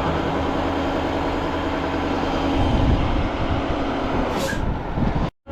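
Tow truck engine running under way with a steady drone, its note changing about three seconds in, and a short hiss near the end. The sound cuts out abruptly just before the end.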